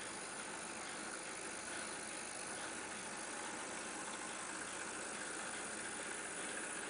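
Z-scale SBB Ee 3/3 model locomotive's small electric motor running steadily as it hauls a string of freight wagons along the track, their wheels rolling on the rails.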